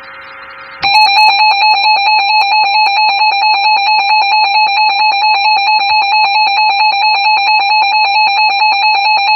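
Emergency Alert System attention signal: a loud, harsh, steady electronic alarm tone that starts abruptly about a second in, after a fainter buzz, and holds without a break. It announces the emergency alert, here a severe thunderstorm warning.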